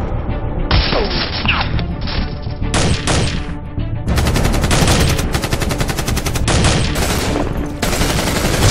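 Dubbed-in sound effects of rapid automatic gunfire, in several long bursts following almost without a break, over background music.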